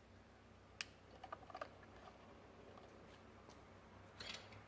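Small plastic clicks and taps from a battery being fitted into a wireless garage door keypad: one sharp click about a second in, a few lighter clicks just after, and another short group of clicks near the end, over near silence.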